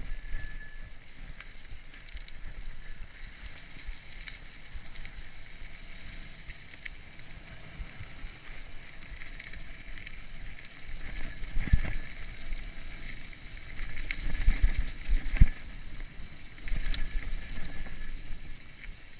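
Mountain bike riding a dirt singletrack: knobby tyres rolling over dirt and dry leaf litter, with the bike rattling and thudding over bumps. The heaviest jolts come about twelve seconds in and again two to three seconds later.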